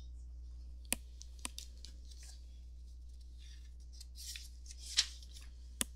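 Paper rustling and several sharp clicks as the pages of a picture book are handled and turned, over a faint low hum.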